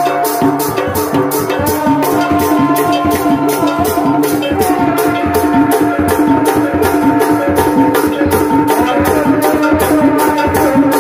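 Sundanese tanji band music: drums keep a fast, even beat with a sharp hit about four times a second, under a held melody line.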